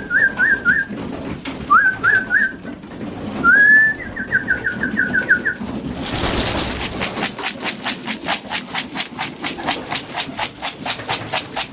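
Racing pigeons cooing in their loft, with a series of short, high whistled notes in the first half: a rising slur, then quick repeated falling notes. From about halfway on, a fast, even rasping rhythm of about four or five pulses a second takes over.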